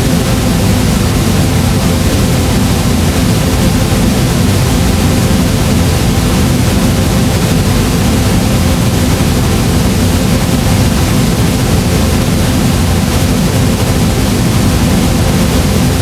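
Flamethrower firing in one continuous, unchanging blast: a loud, steady rushing noise, heaviest in the deep low end.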